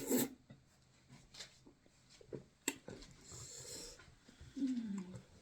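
Close-up mouth sounds of someone eating fufu: wet clicks and smacks, a breathy hiss partway through, and a short falling hum near the end.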